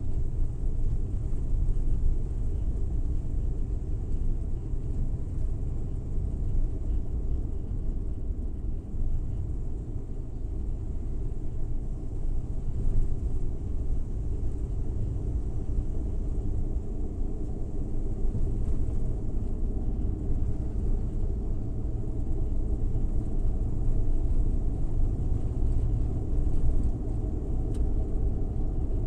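Suzuki Every Wagon kei van's 660 cc three-cylinder engine and tyres running at steady driving speed: a continuous low rumble.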